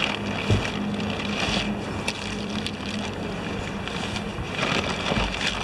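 Rustling and crinkling of a nylon stuff sack being opened and rummaged through by hand, with a sharp knock about half a second in and a few small clicks, over a steady background hiss.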